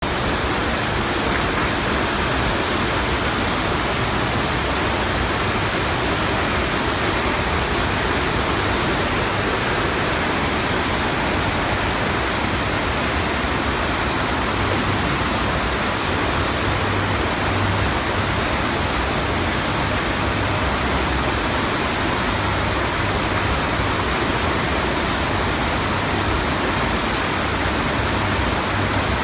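Fast sheet of water rushing up the padded slope of an artificial standing-wave surf ride, a steady loud rush with no breaks.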